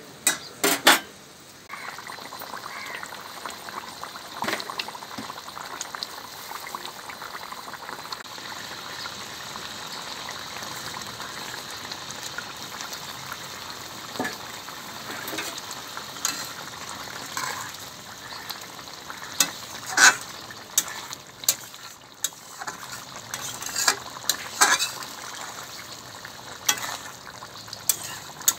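Fish curry sizzling and bubbling in an aluminium karahi, a steady sizzle from about two seconds in. A spatula knocks and scrapes against the pan now and then, loudest near the start.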